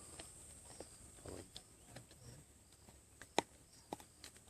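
Lions and cubs feeding on an impala carcass: faint, scattered crunching and clicks, the sharpest click a little past halfway.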